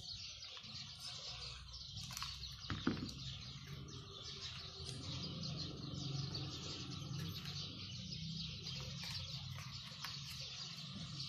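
Faint bird chirping in the background, with quiet handling of foam sheets and a single soft click about three seconds in.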